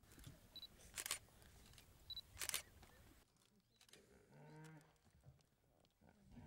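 Digital SLR camera taking two shots, each a short high autofocus-confirmation beep followed a moment later by the shutter click.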